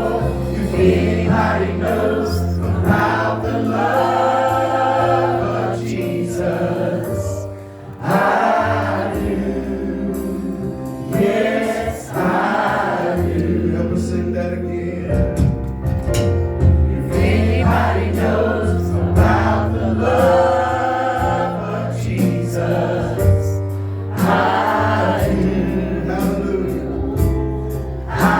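A gospel song sung by a group of voices with instrumental accompaniment, in sung phrases of a few seconds over held low bass notes.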